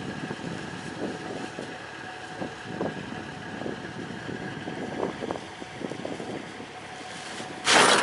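Kubota DC-35 combine harvester's diesel engine running steadily, with scattered rustles and knocks of full rice sacks being handled. Near the end, a loud short thump as a sack is dropped into a pickup truck bed.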